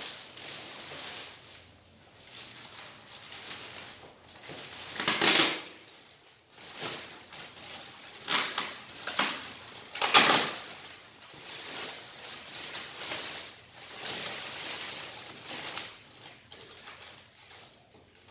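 Clear plastic bag crinkling and rustling as it is handled and pulled off a large box, in irregular bursts, loudest about five and ten seconds in.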